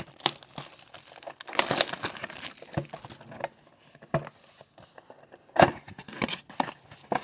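Plastic packaging crinkling and tearing, with cardboard rustles and clicks, as a sealed mega box of trading cards is opened; the busiest crinkling comes about two seconds in and a single sharp snap about five and a half seconds in.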